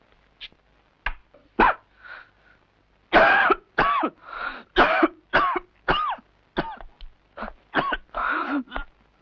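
A man coughing over and over in a long fit, about fifteen short coughs with brief pauses between them: the cough of a man ill with tuberculosis.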